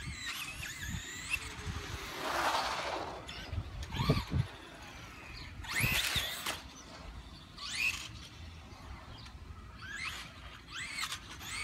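Traxxas Rustler VXL RC truck's brushless electric motor whining up in pitch again and again under short bursts of throttle as it is driven hard on the street. The rising whines come several times over, at varying distance.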